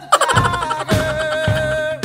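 Background music: a melody with a long held note over a steady beat of about two strokes a second.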